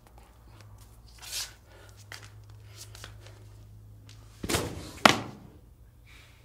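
A person falling backward onto the floor: a heavy thud about four and a half seconds in, then a sharp smack half a second later as the body lands. A short breathy hiss comes about a second in.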